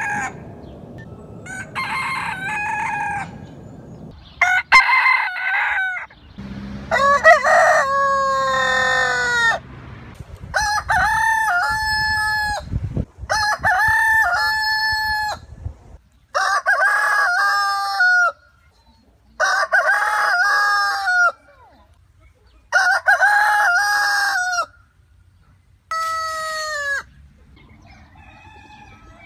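Roosters crowing again and again: about nine separate crows, each one to two seconds long, with short pauses between them.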